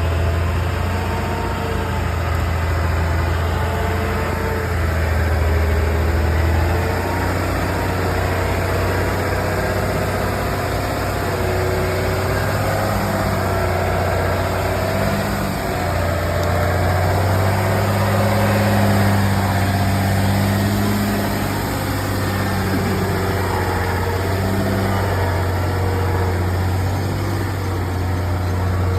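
Heavy vehicle engine running steadily at low revs, its pitch drifting slightly up and down.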